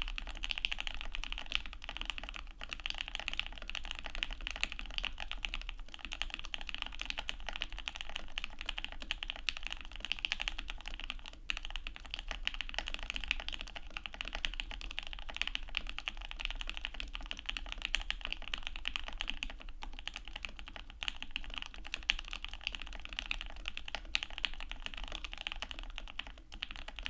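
Steady, fast typing on an aluminium Obliterated75 mechanical keyboard with Wuque Studio OA switches, keystrokes running together in a dense clacking stream. The switches are lubed heavily, which keeps the typing fairly quiet.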